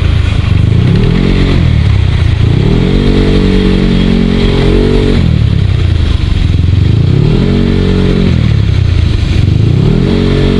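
Motorcycle engine being ridden, its revs rising and easing off about four times as the rider opens and closes the throttle in stop-and-go traffic.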